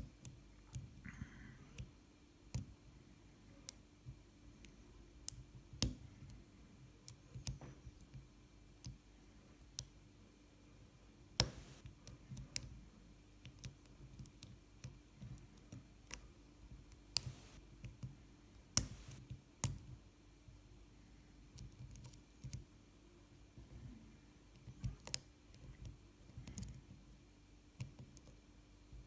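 Lock picking in a BKS padlock: the pick and tension wrench scrape in the keyway, with scattered sharp clicks at irregular intervals, several louder than the rest.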